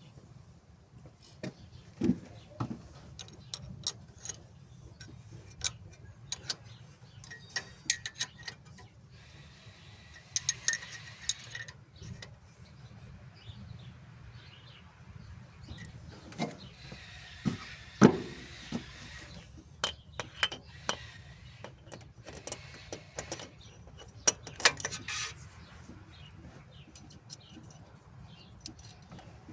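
Workshop handling of metal tools and engine parts: scattered sharp clicks, taps and clanks, with two short rough hissing stretches, over a faint steady low hum.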